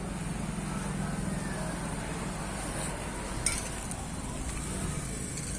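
Steady low hum like a running motor vehicle, with one sharp click about three and a half seconds in.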